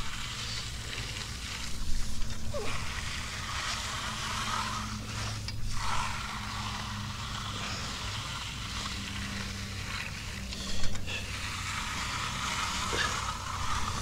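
Steel Fresno trowel blade sliding back and forth over fresh, wet concrete, a soft steady scraping swish, with a few louder strokes about two, six and eleven seconds in. A steady low engine hum runs underneath.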